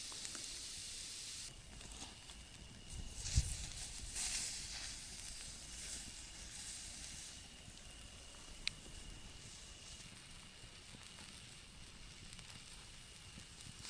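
Campfire burning with a soft hiss and crackle. The loud sizzling hiss drops away about one and a half seconds in. A dull low thump comes a few seconds in, and a single sharp pop follows later.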